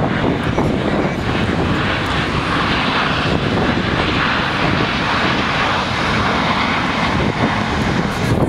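Formation of US Navy Blue Angels F/A-18 Hornet jets flying past, a steady jet rush that grows brighter through the middle and then eases.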